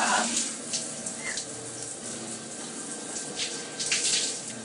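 A shower running: a steady hiss of water spraying down in a tiled shower stall, with a few brief splashes, the strongest about four seconds in.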